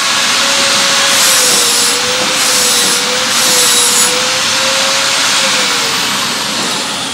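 Steady machine noise with a faint wavering hum that fades out near the end, and short hissy stretches about one, two and a half and three and a half seconds in.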